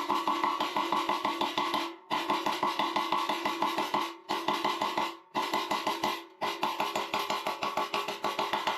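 Rapid metallic tapping in several runs of one to two seconds with short pauses between, each strike ringing: a welding rod being struck to knock the flux coating off a 6013 electrode and leave it bare.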